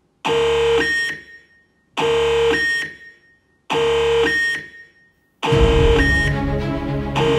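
Electronic intro music. Three identical synth stabs about 1.7 s apart, each a held buzzy note ending in a short high blip. About five and a half seconds in, a full track with deep bass and a repeating pattern starts.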